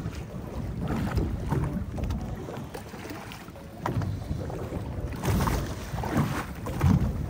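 Small fishing boat at sea: wind buffeting the microphone over the boat and water noise, rising and falling unevenly with a few louder knocks and surges.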